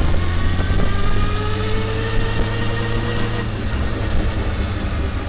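Honda 919 Hornet's inline-four engine running under way, its pitch rising slowly for about three seconds and then changing. Heard with wind and road rumble from a camera mounted low by the rear wheel and chain.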